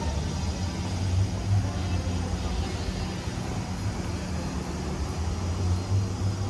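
Low, steady engine drone of a vehicle running close by, over general city street noise.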